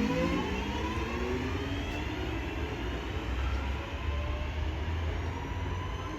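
A train pulling away, its traction motors whining in several tones that climb steadily in pitch as it accelerates, over a low rumble.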